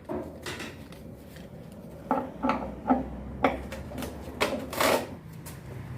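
Metal parts and a wrench clanking and knocking irregularly as a washing machine's parts are unbolted and handled, with a cluster of sharp knocks from about two seconds in.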